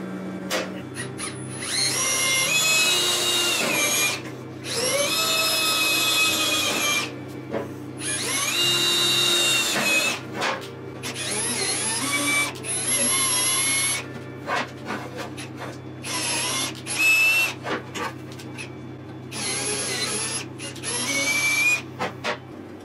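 Cordless drill boring into the metal wheel guard of a bench grinder, running in about six spurts of two to three seconds each, with a high whine while it cuts.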